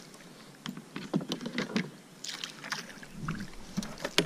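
Scattered splashes and knocks as a fish is brought in with a landing net beside a plastic fishing kayak, the net and gear clattering against the hull.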